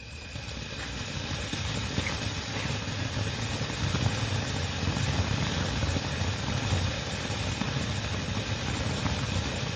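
Sky King 'Gold Feast' crackling fountain firework jetting sparks: a steady rushing hiss that builds over the first second, with crackling all through.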